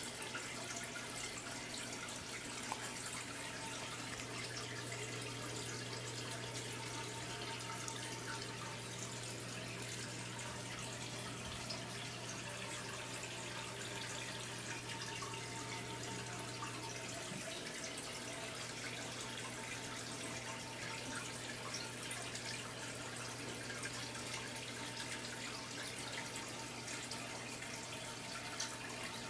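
Aquarium water trickling and splashing steadily as it circulates in the tank, with a low hum underneath that weakens about two-thirds of the way through.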